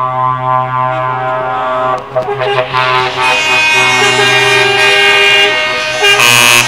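Truck air horns held in long, steady multi-tone blasts while a Scania tractor unit drives past with its engine running. The horn sound brightens about three seconds in and gets louder again near the end.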